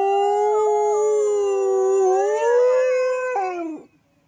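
A dog howling: one long howl held at a steady pitch, rising a little past the middle, then dropping in pitch and stopping shortly before the end.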